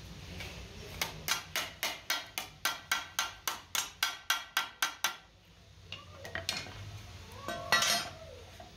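A hand hammer strikes a sheet-metal strip against a steel anvil block, shaping it with about four quick, even blows a second for some four seconds. A few lighter knocks follow, then a louder metallic clatter near the end.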